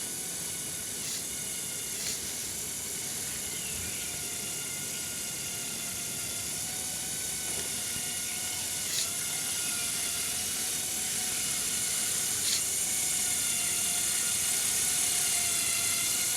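Small electric motors of a Lego Technic off-road model whining steadily through plastic gearing, with a few faint clicks, getting slightly louder over the second half.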